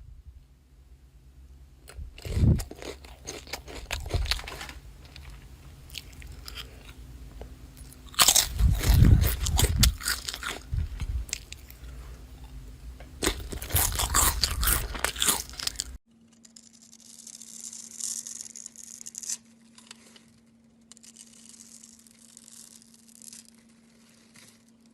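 Slime being squeezed and pressed in the hands, giving dense crackling and crunching, loudest in two spells in the first two-thirds. It then changes abruptly to softer, higher, hissing squishes over a faint steady hum.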